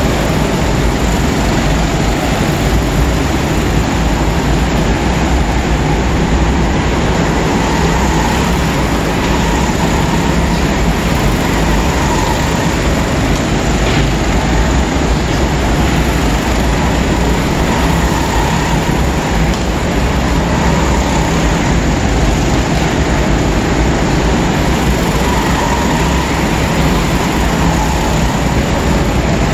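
Racing go-karts running around an indoor track: a steady, loud, dense droning din, with faint engine notes that rise and fall every few seconds as karts pass.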